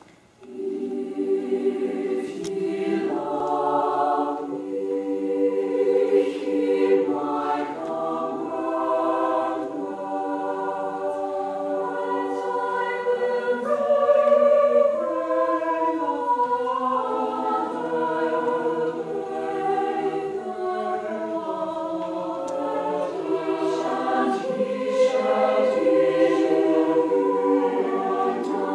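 A choir singing unaccompanied, many voices in sustained, changing chords.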